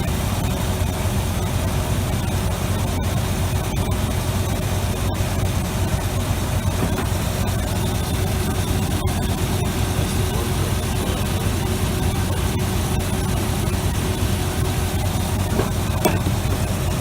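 A Chevrolet 454 big-block V8 idling steadily, with a low, even rumble.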